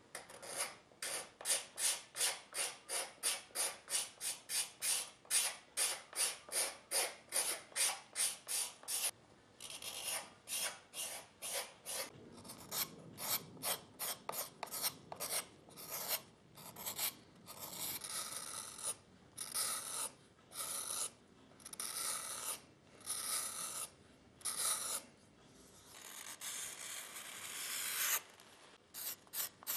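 A hand rasp filing the edge of a shoe's sole in quick, even strokes, about three a second. Later the strokes slow to longer passes about once a second.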